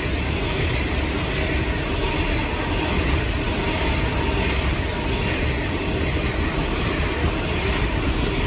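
Coal train hopper wagons rolling past, a steady rumble of steel wheels on the rails.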